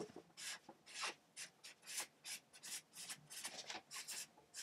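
Felt-tip marker writing on flip-chart paper: a run of short scratchy strokes, about three a second.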